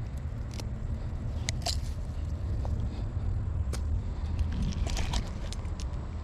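Low wind rumble on the camera microphone, with a few sharp clicks and rattles from metal pliers and a fish lip grip handling a hooked fish as the hook is worked out.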